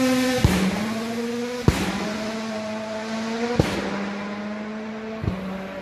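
Rally car engine held at a high, steady note. It breaks four times with a sharp crack and a brief dip in pitch, and fades steadily as it draws away.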